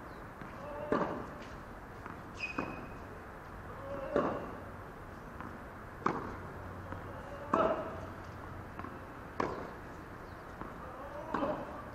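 Tennis rally on a hard court: a ball struck by rackets and bouncing, with a sharp pop about every one and a half to two seconds.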